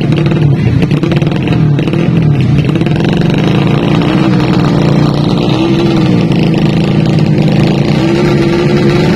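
Four-stroke 200 cc underbone drag bike engines revving at the start line, held at high revs with small dips, then rising again near the end.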